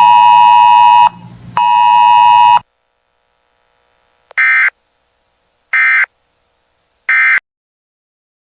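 Two long, loud buzzing alert beeps, then three short bursts of warbling Emergency Alert System data tones about a second and a half apart: the end-of-message code that closes the weather alert broadcast.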